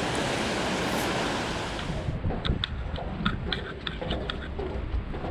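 Water rushing steadily over a dam spillway; about two seconds in it cuts off, giving way to footsteps on a footbridge deck with light clicks and knocks and wind rumbling on the microphone.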